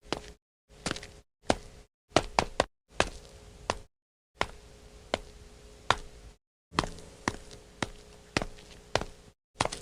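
Anime-style Dragon Ball Z footstep sound effects: sharp tapping steps, one to three in each short clip, with the clips cut apart by brief silences.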